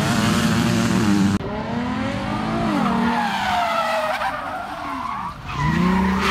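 Motorbike engines running for about a second and a half. The sound then changes abruptly to a car's tyres squealing in a slide, the squeal wavering up and down in pitch.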